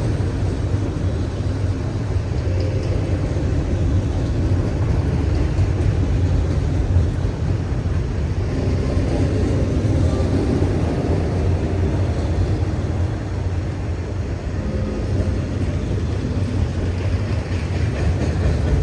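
Freight train rolling past, a steady low rumble that holds at one level throughout.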